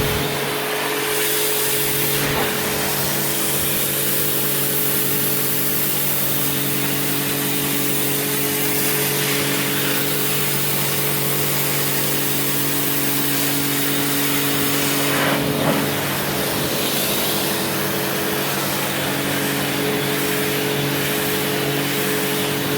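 Karcher K4 electric pressure washer running steadily: the motor's hum under the hiss of the water jet.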